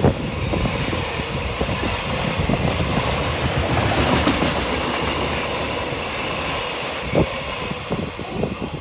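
Container freight wagons rolling past at speed, their wheels knocking over the rail joints in a steady stream of clatter, with one heavier knock about seven seconds in. The noise eases off near the end as the last wagon goes by.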